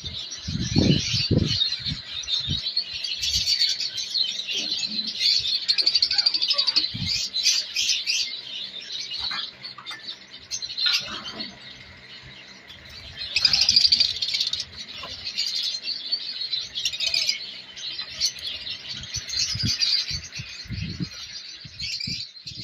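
A colony of lovebirds and other small cage birds chirping and chattering in a dense, continuous mass of high-pitched calls that swells and eases, louder around the middle. A few dull low thumps come about a second in and again near the end.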